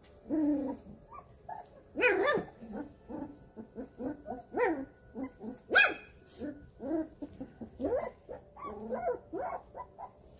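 Four-week-old golden retriever puppies calling: a busy string of short, pitched yips and little barks, several a second, the loudest about two and six seconds in.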